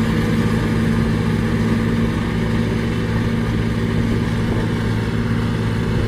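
Single-drum road roller's diesel engine running steadily, a constant low hum that holds its pitch.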